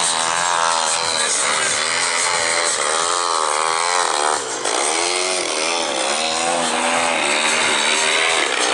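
100cc two-stroke gasoline engine of a large radio-controlled aerobatic model plane, its revs rising and falling again and again as the throttle is worked through a nose-up hover and a low pass, with a short dip in loudness about halfway through.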